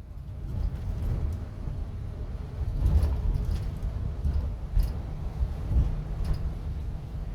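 Coach engine and road noise heard from inside the passenger cabin on the move: a steady low rumble, with a few light rattles and clicks.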